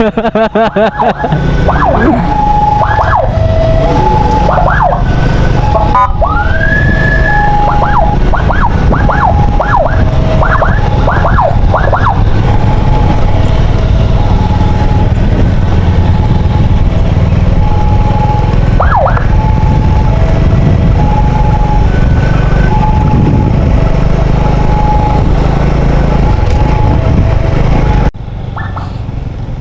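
Ambulance siren alternating between two notes, with quick up-and-down sweeps breaking in over it, mostly in the first half, all over a heavy low rumble. The sound cuts off abruptly near the end.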